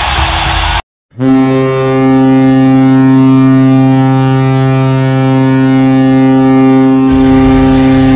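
Hockey arena goal horn: one long, steady, low horn blast starting about a second in after a brief silence, with noise rising beneath it near the end. Before it, the tail of loud music and crowd noise cuts off.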